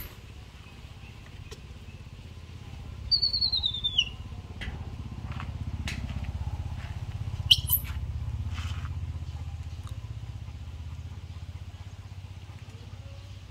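A low engine rumble that swells and then fades, as of a vehicle passing. About three seconds in there is a short, high chirp that falls in pitch, and a couple of sharp clicks come around the middle.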